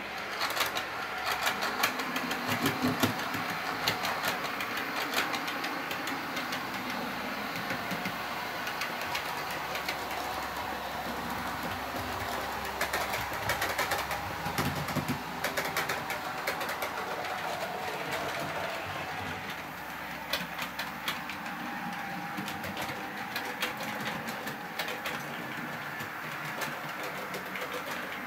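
Model trains running on the layout's track: a steady running noise from the locomotive motors and wheels, with clusters of rapid clicks as the wheels pass over rail joints and pointwork.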